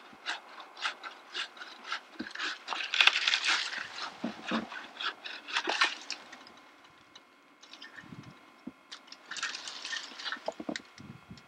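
Tree limbs being cut by hand: even rasping strokes about two a second, then bursts of dry branches and leaves crackling and rustling.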